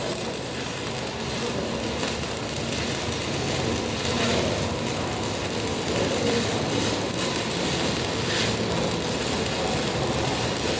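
Electric arc welding: the arc's steady crackling hiss, running on without a break.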